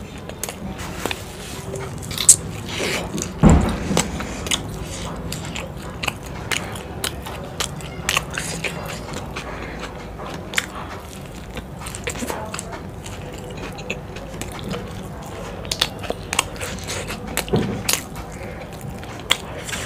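Close-miked eating sounds: chewing a saucy chilli momo, with many wet mouth clicks and smacks. There is a low thump about three and a half seconds in, and a bite into the momo near the end.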